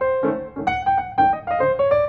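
Background piano music: a run of single pitched notes with chords beneath.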